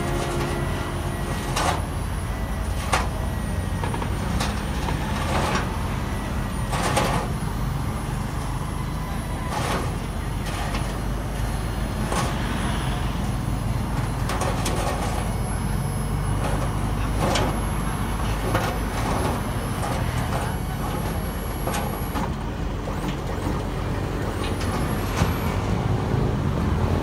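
Steady low rumble of an Isuzu D-Max diesel pickup running while its hydraulic slide-on bed is lowered. Sharp clanks come every one to three seconds.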